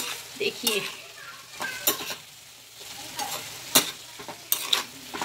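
A metal spoon stirring chicken momo filling in a non-stick frying pan, with irregular scrapes and knocks against the pan over a soft sizzle of the wet mix cooking on the heat.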